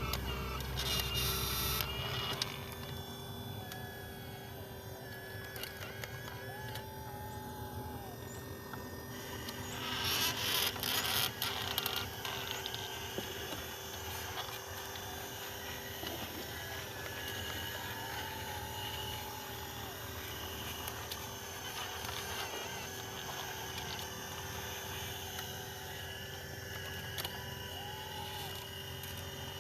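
Small electric motors of radio-controlled model construction machines running with a steady whine, with a louder burst of noise lasting about two seconds about ten seconds in.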